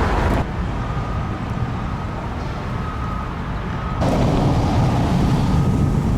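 Low rumble of road and wind noise from a moving vehicle, with a faint steady whine above it; it drops in level shortly after the start and comes back up about four seconds in.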